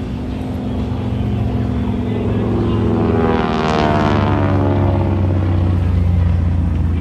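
North American AT-6 Texan's Pratt & Whitney R-1340 Wasp radial engine and propeller droning in a flyby: the sound swells to a peak about halfway through, then drops in pitch as the plane passes.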